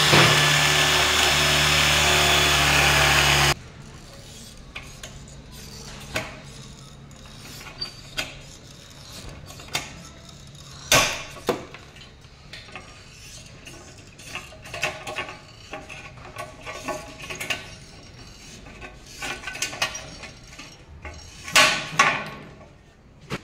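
Electric drill running as it bores into an aluminium profile, stopping abruptly about three and a half seconds in. Then scattered clicks and knocks as the aluminium section is handled and worked with a plier-like hand tool.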